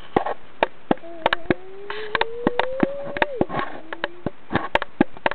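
A flying insect's buzz that holds one tone and slowly rises and bends in pitch, with many irregular sharp clicks over it.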